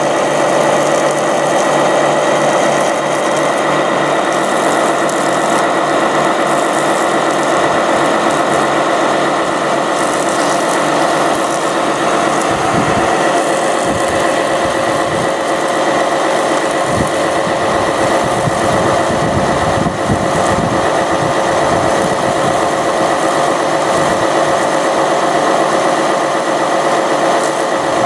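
Radio-controlled fire trucks running together: a steady mechanical drone with a constant whine, in which their engines or onboard water pumps keep going without a break.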